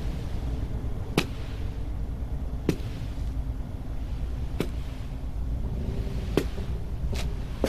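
Slow, sharp footsteps on a hard basement floor, one about every one and a half to two seconds, over a low steady rumble.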